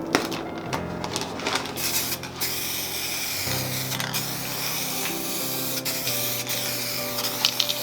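Aerosol spray paint can hissing in long sprays, strongest from about two and a half seconds in, over background music with held notes.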